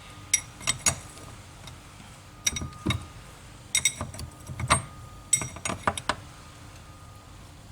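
Metal hand tools clinking and tapping against metal in four short clusters of sharp clinks.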